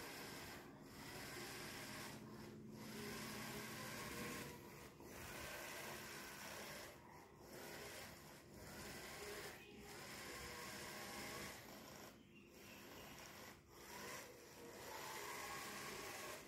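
Small gear motors of a hobby robotic sweeping truck running faintly with a rasping whirr, broken by several brief gaps.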